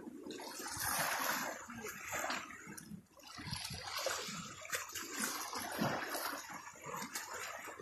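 Sea waves washing and splashing against the rocks of the shoreline, swelling and falling back in surges.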